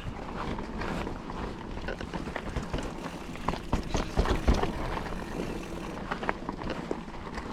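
Mountain bike riding a dry, loose trail: steady tyre noise on dirt and gravel with a run of knocks and clatters from the bike over rough ground, loudest about four seconds in.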